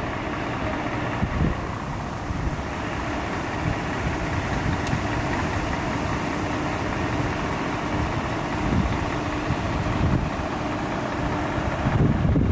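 A vehicle engine running steadily at idle, a constant low hum with no siren, getting a little louder near the end.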